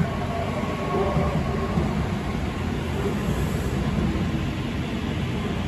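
N700A Shinkansen bullet train running along the station tracks: a steady rumble of wheels on rail and running noise, with faint steady tones on top.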